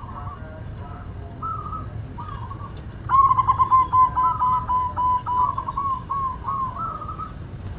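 White zebra dove (perkutut) cooing: a few soft coo notes, then about three seconds in a louder, rapid run of short stuttering coos that ends with a few higher notes.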